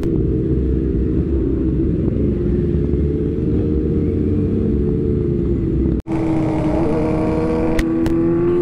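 Motorcycle engine running under way, with a heavy low rumble around its steady note. The sound cuts out abruptly for an instant about six seconds in, then the engine note resumes and rises slightly near the end as the bike picks up speed.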